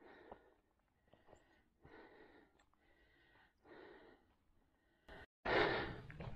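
A walker breathing while climbing uphill, faint breaths coming about once a second, with a few small clicks. Near the end a sudden, much louder rush of noise starts.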